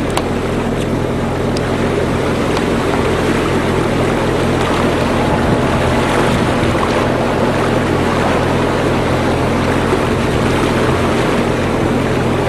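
A catamaran's engine drones steadily as the boat motors through a calm, with water rushing past the hulls.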